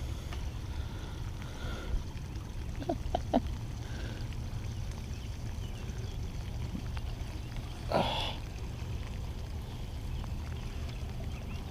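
Open-water ambience heard from a kayak: a steady low rumble of wind on the microphone, with faint bird chirps. A few light clicks come about three seconds in, and a short noisy burst about eight seconds in.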